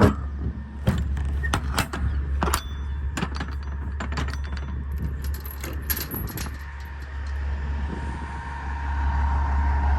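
Semi truck's diesel engine idling steadily, with a run of sharp metallic clicks and knocks over the first several seconds.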